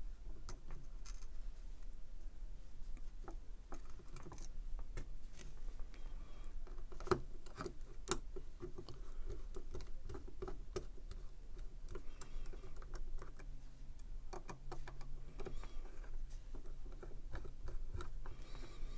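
Small clicks and light metallic taps at irregular intervals as a small driver turns the screws holding a pocket clip onto a pocket knife. A faint low hum comes in about two-thirds of the way through.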